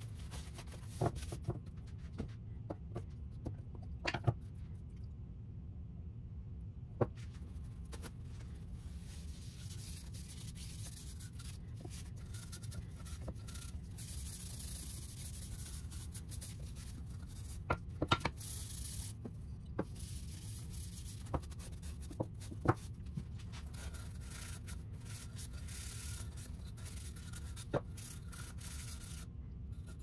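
A rag rubbing wood stain onto a carved wooden board in patches of soft hiss, with the drop cloth rustling and scattered small knocks, all over a steady low hum.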